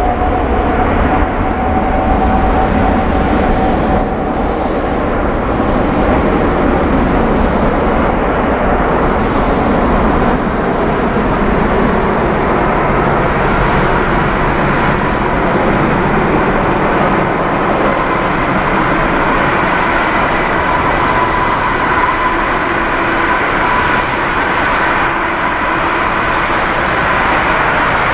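Airbus A380-841's four Rolls-Royce Trent 970 turbofans running at taxi power as the airliner lines up for take-off: a loud, steady jet roar. A high engine whine rides on top; it rises slightly in pitch at the start and then holds.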